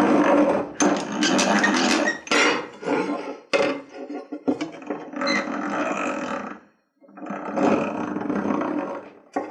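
Countersink bit in a hand-cranked bench drill press cutting into the hand-forged iron tang of a cleaver: a rough grinding chatter in several spells, with a short pause about seven seconds in.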